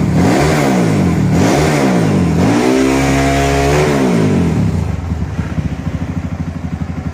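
Rebuilt single-cylinder Honda CRF150 engine, bored and stroked up to about 230 cc and still on its stock exhaust, revved in three quick blips. It is then held at higher revs for a second or so and drops back to a lumpy idle about five seconds in.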